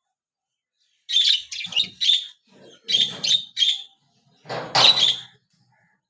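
Pet budgies chirping in short, high bursts, coming in three clusters with brief pauses between, the loudest about five seconds in.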